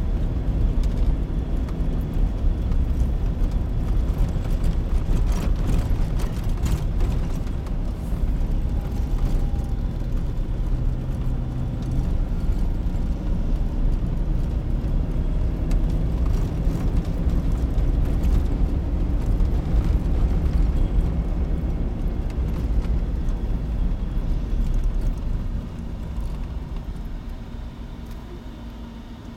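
A car driving on a packed-snow road, heard from inside the cabin: a steady low rumble of engine and tyres, growing quieter over the last few seconds as the car slows.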